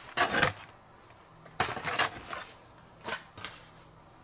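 Hot Wheels plastic blister packs on cardboard cards being handled and shuffled, crinkling and clacking in three short bursts.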